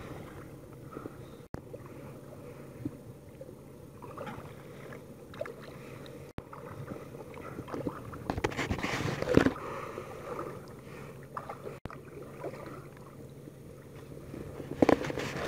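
Water lapping and splashing against a kayak, with louder splashes about eight to nine and a half seconds in and again near the end.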